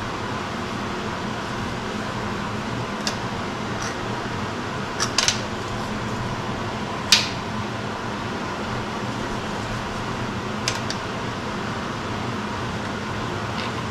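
Steady fan-like shop hum with a few scattered sharp metallic clicks and taps as a hex key works at the line-boring bar and its fixture, the loudest about seven seconds in.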